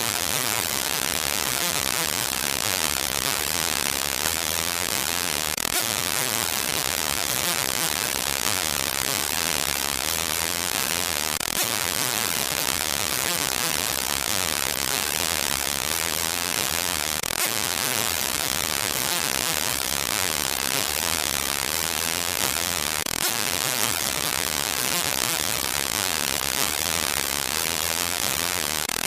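Steady hissing static, even and unbroken, with its strength in the high range and no separate clicks or tones.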